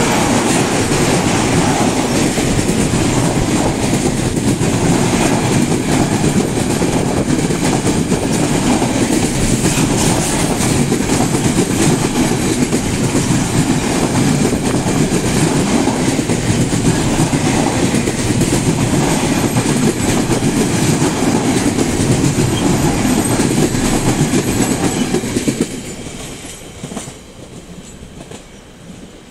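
Container freight train rolling past close by, its flat wagons loud and steady on the rails. Near the end the last wagon goes by and the sound quickly drops away.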